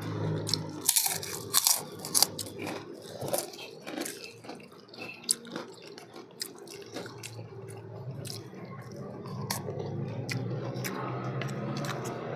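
People eating close to the microphone: chewing and crunching food, with spoons clicking and scraping against plates. The clicks are densest and loudest in the first two seconds or so.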